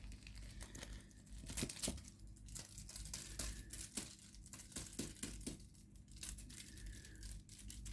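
A crinkly cat toy rustling and crackling in irregular bursts of short clicks as it is played with.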